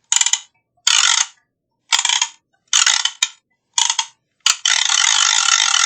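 Small matraca (hand ratchet rattle) played in five short rattling bursts about a second apart, then one longer continuous rattle of about two seconds.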